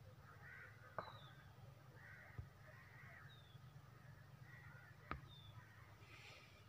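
Faint distant birds calling: repeated harsh, caw-like calls and a few short high chirps, over a low steady hum. Two sharp clicks, about a second in and again about four seconds later.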